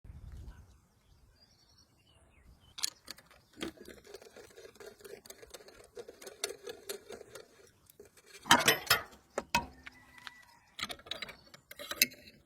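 Irregular sharp metallic clicks and clinks, with a quick pulsing rattle through the middle and a loud clatter about eight and a half seconds in.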